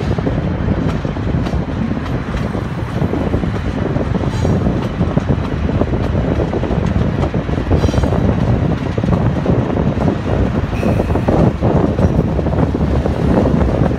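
Union Pacific diesel locomotives, running as mid-train distributed power units in a double-stack container train, rumble steadily as they roll slowly past. The train's rolling noise goes with them, and a few faint, brief high squeals come now and then.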